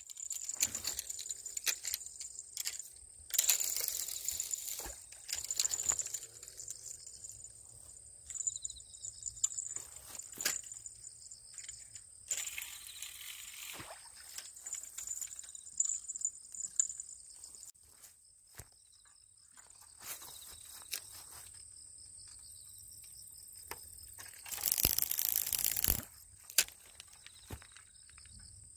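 Insects chirping steadily in a high pitch, broken three times by short bursts of close rustling noise, the loudest of which comes near the end, along with scattered light clicks.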